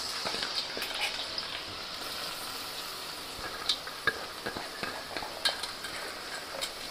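Freshly added chopped onions sizzling steadily in hot oil in a kadai, with a few sharp clicks.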